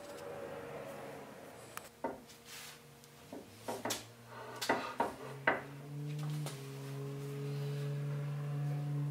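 A few sharp knocks and clunks of a wooden wagon beam and its iron strap being handled. About midway, soft held background-music notes come in and become the loudest sound.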